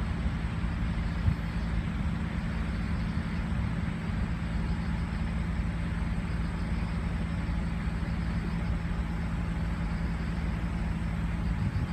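A vehicle running steadily: a constant low engine hum with a steady rushing noise over it.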